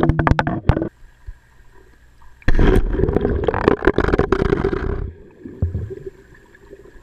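Water churning and bubbling around a submerged camera, heard muffled through the water: a loud stretch with knocks that stops about a second in, a lull, then a second loud burst of bubbling from about two and a half seconds in to about five seconds in.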